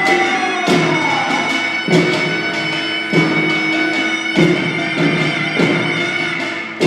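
Korean traditional folk music: a shrill wind instrument holds a sustained melody over a drum struck on a steady beat, about once every second and a quarter.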